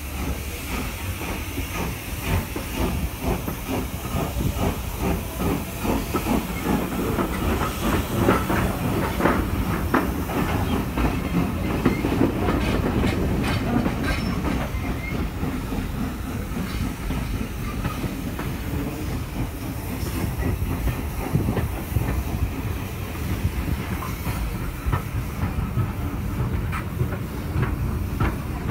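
Steam-hauled train coaches running on the line, heard from inside a carriage: wheels clicking and knocking over the rails with a steady rumble, and a hiss of steam from the British Railways 0-4-4 tank engine 30053 as the train gets under way.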